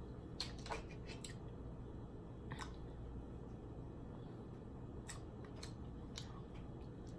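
Close-miked eating sounds: scattered sharp clicks and crackles of snow crab shell being cracked and chewed, a cluster of them in the first second, over a steady low hum.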